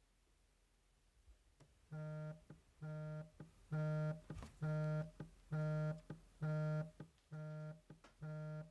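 Smartphone vibrating on a desk for an incoming call: eight short, even buzzes of the same low pitch, a little under a second apart, starting about two seconds in.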